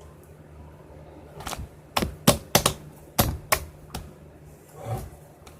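Glittery slime being squeezed and poked, giving a series of sharp, irregular clicks and pops, about eight of them, starting about a second and a half in.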